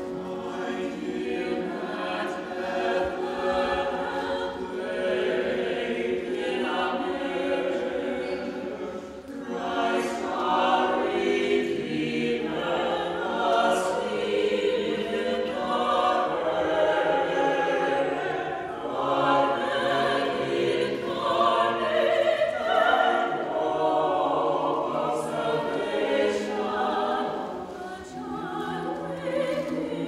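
Mixed choir singing a classical choral piece, accompanied by a small orchestra of strings and woodwinds.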